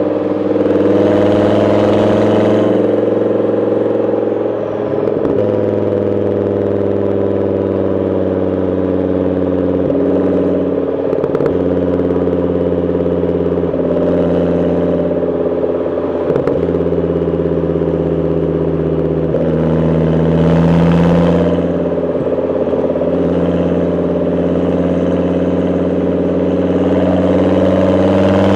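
Volvo S70's inline-five engine running steadily, its pitch stepping slightly every few seconds and swelling briefly about two-thirds of the way through.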